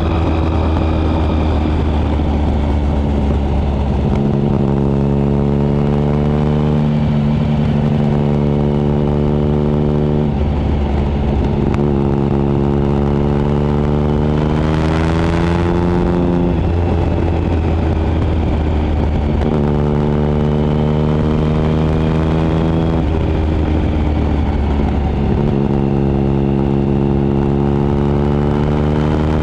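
2013 Triumph Speed Triple 1050's inline three-cylinder engine, fitted with a Competition Werks slip-on exhaust, under way and working through the revs. The engine note steps and swells several times, with its longest rise in pitch around the middle before it drops away.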